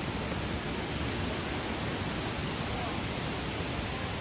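Steady, even rushing of water cascading down a river.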